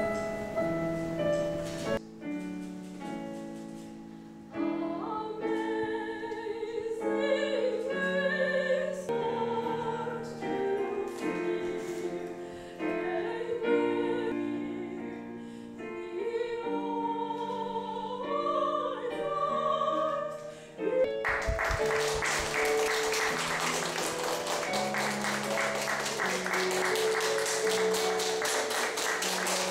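A woman singing a slow, classical-style song with vibrato over piano accompaniment. About two-thirds of the way in, applause breaks out and continues over the music.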